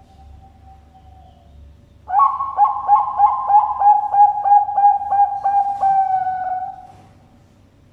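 Zebra dove (Perkutut Bangkok, a Thai-bred song strain) singing a rapid run of about a dozen short, evenly spaced coos, the last one held longer.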